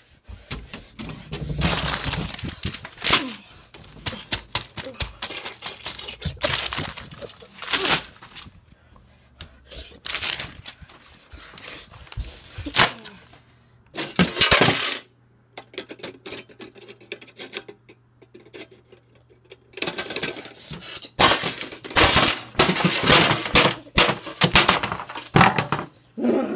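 A spiral notebook's paper being crumpled and torn in loud, irregular bursts of crackling, with sharp knocks among them.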